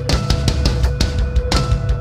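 Loud background music: hard rock or metal with pounding drums.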